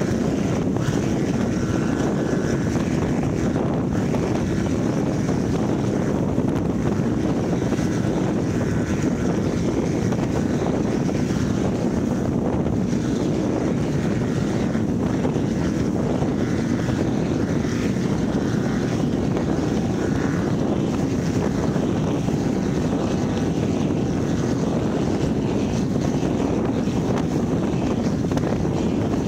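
Offshore racing powerboat running flat out through rough water: a steady engine drone mixed with heavy wind buffeting on the microphone and the rush of spray off the hull.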